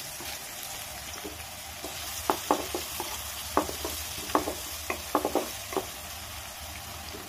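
Chopped onion, garlic and ginger sizzling in a little oil in a metal kadai. From about two seconds in, a wooden spatula stirs them, scraping against the pan in short strokes.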